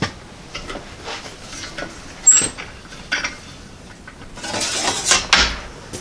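Hand-cranked Eastwood bead roller pressing a bead into a 16-gauge steel panel: scattered metallic clicks and clunks from the crank and dies, with a brief squeak about two seconds in. Near the end comes a longer scraping rattle as the steel sheet is handled and pulled from the rollers.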